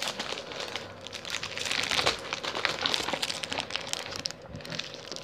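Plastic candy-bar wrappers crinkling and rustling as candy is rummaged through and picked up, an uneven crackle.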